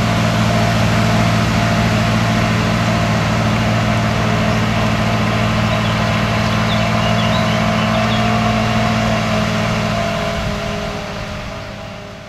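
Fiatagri 110-90 DT tractor's six-cylinder diesel engine running steadily under load as it pulls a trailer of round bales, fading away near the end.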